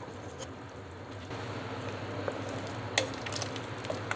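Tomato and eggplant minestrone simmering on low heat in a stainless steel pot: a steady bubbling hiss that grows a little louder about a second in. A utensil stirring in the pot clicks against it a few times, loudest about three seconds in.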